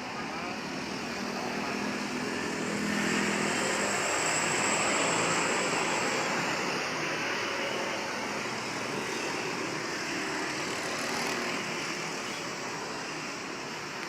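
A road vehicle passing by: its engine and tyre noise swell to a peak about five seconds in, then fade away.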